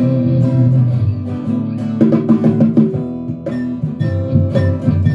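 Band music led by guitar, instrumental with no singing.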